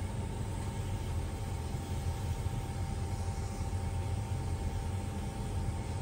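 Steady low rumble and hum of bakery machinery, with a few constant tones and a faint even hiss above it, such as the spray mist over the dough.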